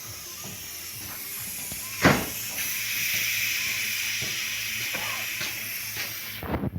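Compressed air hissing as it is blown through an engine oil passage toward the oil filter, to check whether the passage is clear. A sharp blast comes about two seconds in, then a louder steady hiss that cuts off near the end.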